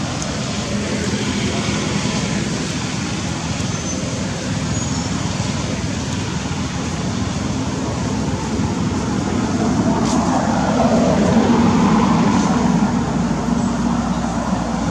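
Steady traffic noise from the road, with a motor vehicle passing louder about ten seconds in, its pitch falling as it goes by.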